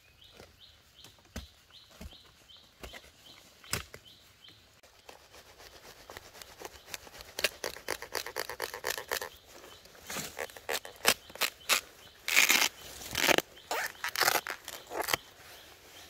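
A bird repeats a short chirp in a quick series through the first few seconds. Then gloved hands dig, scrape and tear through loose forest soil and leaf litter to pull up a bamboo shoot, with crackling, rustling strikes that grow louder and denser towards the end.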